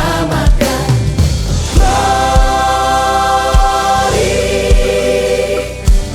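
Worship choir singing in harmony with a full band, holding one long chord in the middle, over a steady kick drum beat.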